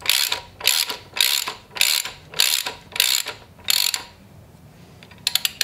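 Hand socket ratchet clicking in short back-and-forth strokes, about seven bursts a little over half a second apart, as it turns the 17 mm screws of a valve spring compressor tool down to seat the engine's valves. There is a pause about four seconds in, then a faster run of clicks near the end.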